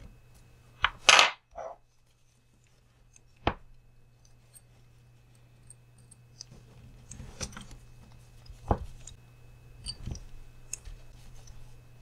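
Small screws being driven with a hex driver into the front axle of a Traxxas TRX-4M RC crawler: scattered clicks and taps of metal tool on screw and plastic, loudest about a second in, with light rustling of handling and a low steady hum underneath.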